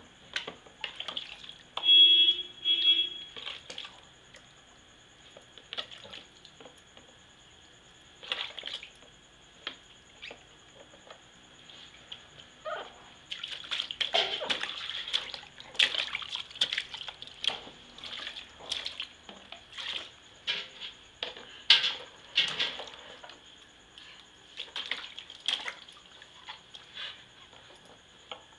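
Water splashing and sloshing in a plastic baby bathtub as a baby is washed by hand, in irregular bursts that grow busier past the middle. Two brief high tones sound about two seconds in.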